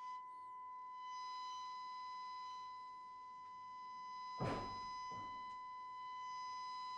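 A steady test tone from the speaker of a Braun SK25 tube radio, tuned to a modulated FM signal from a signal generator during alignment. The tone turns harsher about a second in. Two knocks come a little past the middle.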